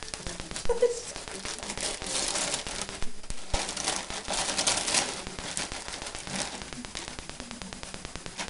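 Gift wrapping paper tearing and crinkling as a present is unwrapped, then tissue paper rustling as the gift is pulled out. It is densest and loudest in the first five seconds and lighter after.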